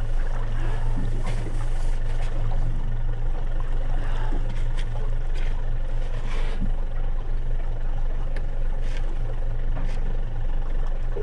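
Boat motor running steadily at trolling speed, a constant low hum with water and wind noise over it.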